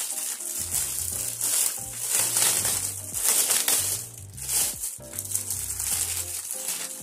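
Clear plastic bag crinkling and rustling in repeated surges as a heat-press plate attachment is pulled out of it by hand, over background music with a steady bass line.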